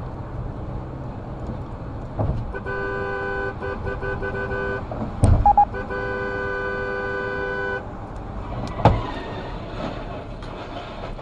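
Vehicle horn sounding over steady road noise inside a car: a run of short honks, then one long blast of a few seconds. A loud sharp burst comes between them, and a thump about nine seconds in.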